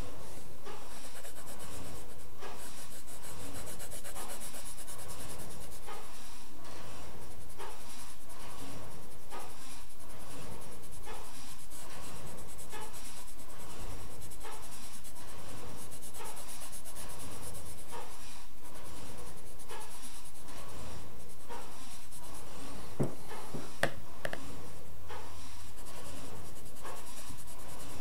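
Black colouring pencil shading on drawing paper: quick, scratchy back-and-forth strokes rubbing the lead across the sheet. Two sharp clicks come a little under a second apart near the end.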